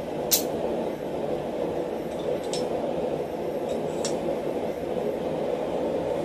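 Small steel tool pieces clinking against a steel die block as they are fitted together by hand: one sharp clink just after the start, then a few lighter ticks around two and four seconds in, over a steady low roar.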